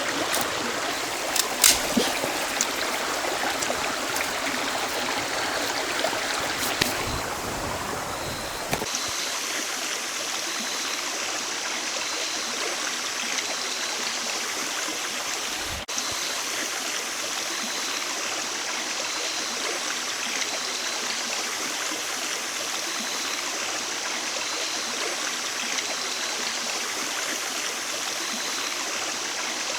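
River water flowing steadily, with a few sharp clicks in the first couple of seconds. About nine seconds in the sound changes abruptly: the low rumble drops out and a steady high hiss with a faint tone pulsing about once a second continues over the water.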